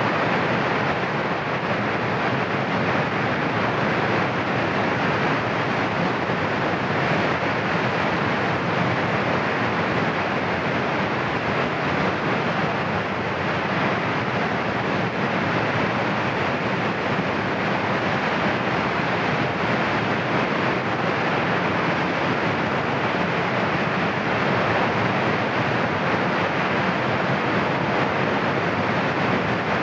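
Cumbre Vieja volcano erupting: a steady, even rushing noise with no separate blasts.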